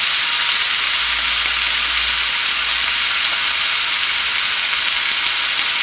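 Thin beef steaks sizzling steadily on a well-heated ridged griddle pan, a dense, even hiss.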